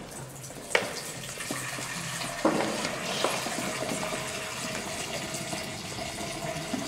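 Water poured from a jug in a thin stream into a baptismal font, splashing steadily into the basin, with a sharp knock just under a second in and a louder one about two and a half seconds in.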